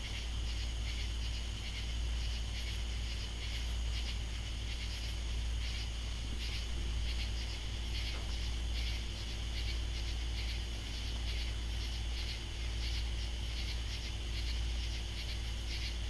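A night chorus of katydids calling, with rhythmic buzzy pulses repeating over and over, and a low steady hum underneath.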